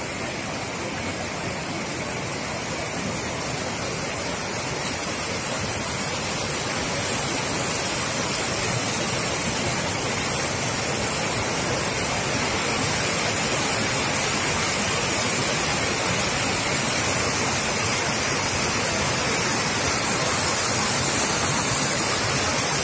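Rain-swollen river rushing through a rocky channel in strong flood, a steady roar of water that grows a little louder over the first eight seconds or so.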